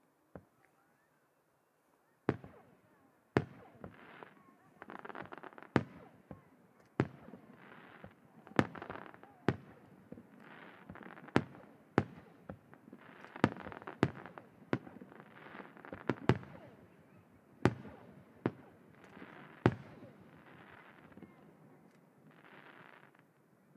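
Aerial firework shells by Sato Enka bursting in a rapid series of sharp booms. The series begins about two seconds in and fades near the end, with a rushing noise between the reports.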